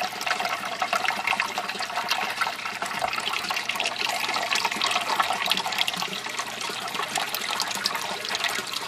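Water running and trickling steadily in an aquaponics grow bed around a PVC bell siphon, as the water level nears the top of the standpipe.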